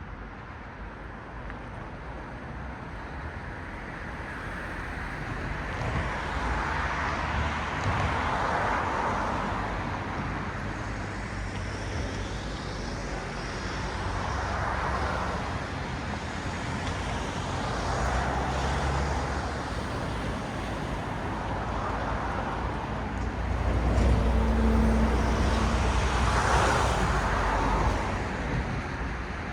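Road traffic: cars passing one after another, each a swell of tyre and engine noise that rises and fades. The loudest pass, with a low rumble, comes about three-quarters of the way through.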